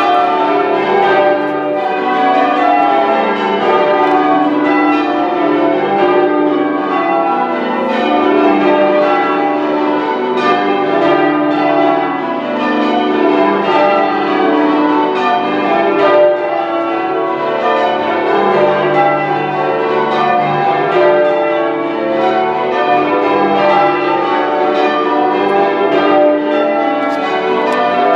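A ring of ten church bells change ringing, struck one after another in a continuous rapid sequence, their tones overlapping and ringing on.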